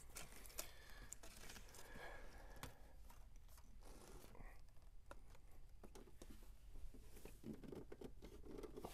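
Faint handling noises: scattered small clicks, scrapes and rustles as the power wheelchair's joystick mount and its cord are adjusted by hand.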